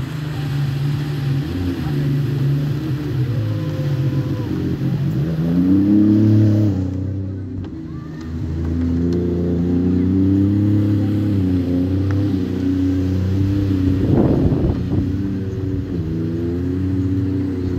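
Jet ski engines running and revving as the craft speed along the water, their pitch rising and falling. There is a strong rising rev about six seconds in and a dip soon after, then steady running, with a short rush of noise about fourteen seconds in.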